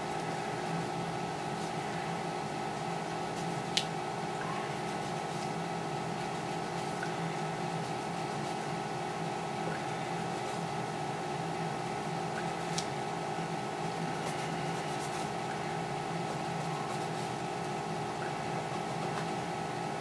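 A steady machine hum with a few fixed tones, and two brief sharp clicks, one about four seconds in and one about thirteen seconds in.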